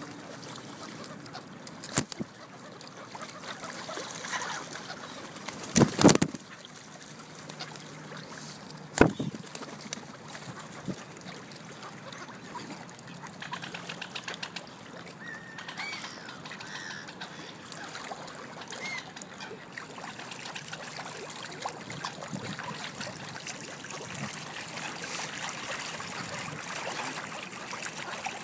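Water lapping and trickling against a stone edge while mute swans, ducks and pigeons feed, with a few faint bird calls in the middle. Three sharp knocks about 2, 6 and 9 seconds in, the one near 6 seconds the loudest.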